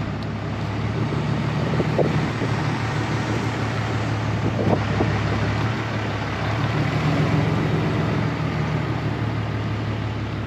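A truck driving along, heard from inside the cab: a steady low engine hum under even road and wind noise.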